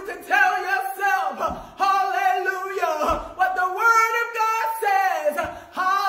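A woman preaching in a half-sung, chanted delivery: short pitched phrases, held and gliding, that break off about once a second.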